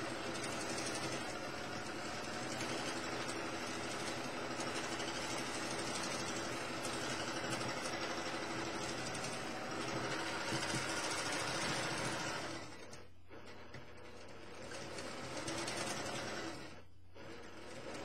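Domestic sewing machine stitching continuously at speed during free-motion quilting, the needle running steadily. It eases off twice in the second half, as the quilter repositions his hands, then picks up again.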